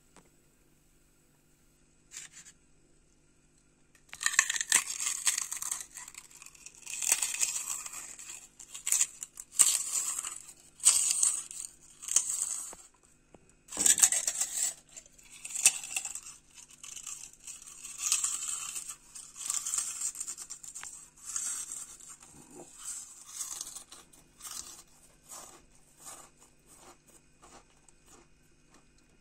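Dry crunching and crackling of crisp fried far far (fryums), short bursts about once a second that start about four seconds in and fade away over the last several seconds. A faint steady hum lies underneath.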